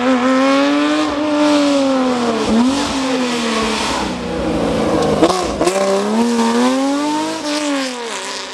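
Air-cooled flat-six engine of an early Porsche 911 rally car at full race pace, its note climbing and dropping through several gear changes and lifts, with a sharp crack about five seconds in.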